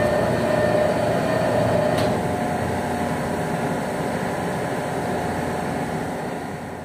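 Steady hum of shipboard machinery with a faint whine, fading out near the end.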